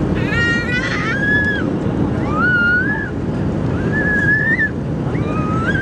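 Airbus A321 cabin on a low approach: steady engine and airflow noise. About five short, high-pitched gliding squeals sound over it, each under a second, the first a brief shrill one about half a second in.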